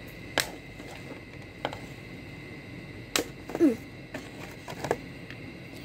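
Scissors snipping the plastic ties that hold a Barbie doll in its packaging: a few separate sharp snips and clicks, with a brief falling squeak about halfway through.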